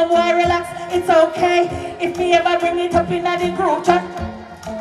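Live dancehall performance through the stage PA: a woman's vocals into a microphone over a backing track with a steady drum beat.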